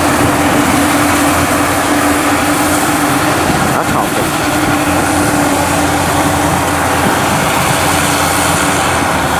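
Yanmar YH850 rice combine harvester running steadily under load as it cuts rice, a constant engine-and-machinery drone with a steady hum.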